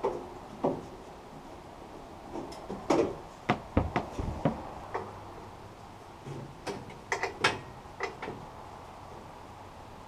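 Scattered clicks and clunks of the metal wheel cover on a Woodland Mills HM122 band sawmill head being handled and swung open by hand to change a dull blade, the knocks bunched a few seconds in and again near the end.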